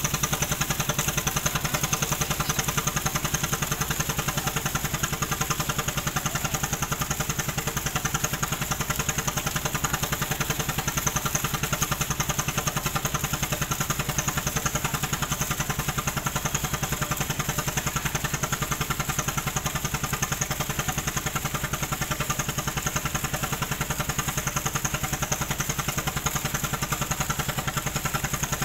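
Engine idling steadily with an even, rapid beat.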